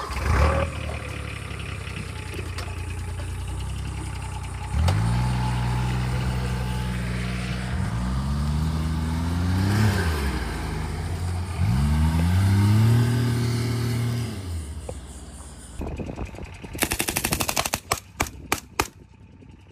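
Engine of a military side-by-side utility vehicle running, then pulling away, its pitch rising and levelling off twice as it accelerates before fading. Near the end, a quick burst of machine-gun fire from an M249, then several more single shots.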